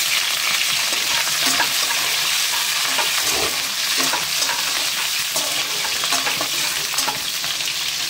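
Chillies and fenugreek seeds frying in hot oil: a steady loud sizzle full of small crackles, with stirring in the pan.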